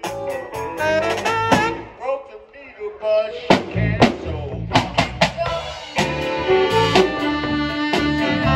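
Live small band playing, saxophones over a drum kit. The drums play sharp snare and cymbal hits, with a quieter patch a couple of seconds in and a run of hard strikes just before the middle. From about six seconds in, the horns hold long notes over the beat.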